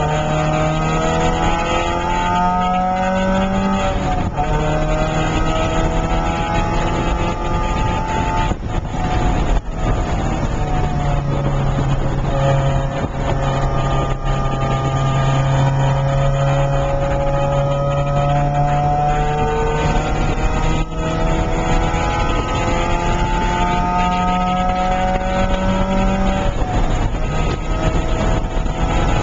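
Porsche 968's 3.0-litre four-cylinder engine at track pace, heard from inside the cabin: its pitch climbs under acceleration and falls back several times as the driver lifts off or changes gear, over steady wind and road noise.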